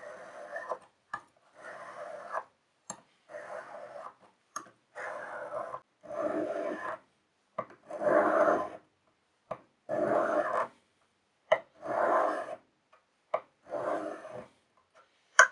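Steel blade of vintage Mikov scissors being sharpened on a whetstone: about ten rasping strokes, roughly one every second and a half, with short clicks between them as the blade is set back on the stone.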